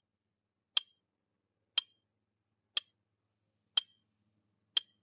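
Countdown-timer tick sound effect, five short, sharp clicks evenly spaced one second apart, each with a brief bright ring.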